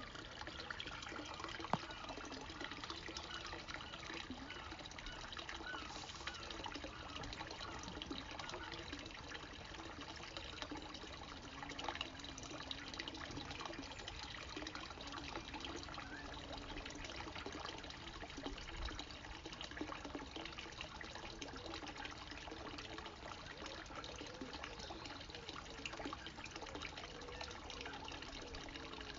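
Steady trickle of water from a pipe outlet falling into a garden pond, with a low, wavering buzz of insects over it. A single sharp click comes about two seconds in.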